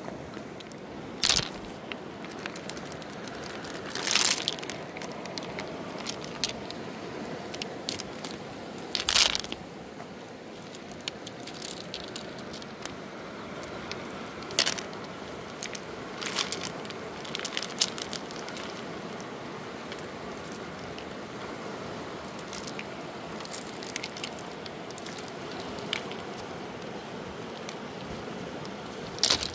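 River pebbles clacking sharply against one another every few seconds as they are picked up and handled on a gravel bank, over a steady rush of flowing river water.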